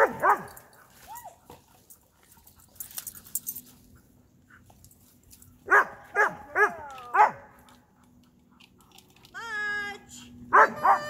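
Dogs barking in quick bursts of three or four barks, near the start, around six seconds in and near the end, with one longer drawn-out cry shortly before the last burst.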